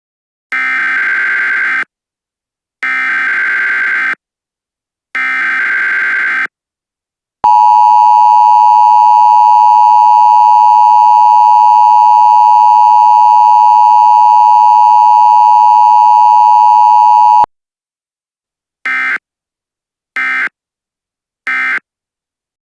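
Emergency Alert System (EAS) alert tones: three harsh bursts of SAME header data, each a little over a second long, then the steady two-tone attention signal (853 and 960 Hz) held for about ten seconds, then three short data bursts.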